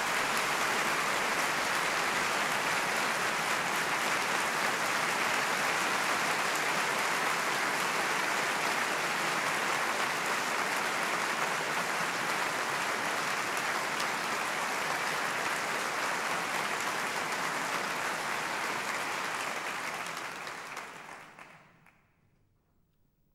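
Audience applauding steadily in a theatre; the applause fades away near the end.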